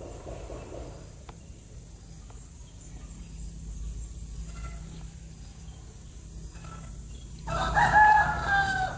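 A single loud bird call near the end, about a second and a half long and falling slightly in pitch, after a quiet stretch with a few faint clicks.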